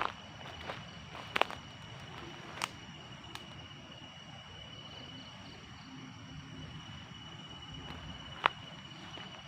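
A steady, high-pitched insect trill, like a cricket, with a few sharp clicks or snaps: one at the start, two in the first three seconds and a louder one near the end.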